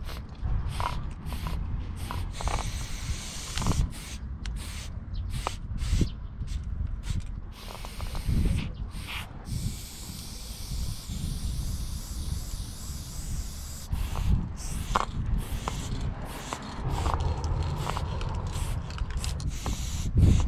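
Aerosol spray paint can hissing as paint is sprayed: short bursts at first, then one longer unbroken spray of several seconds in the middle, and more spraying near the end. A low rumble runs underneath.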